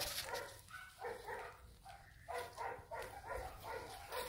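Dogs barking over and over, a quick run of short barks at about three a second.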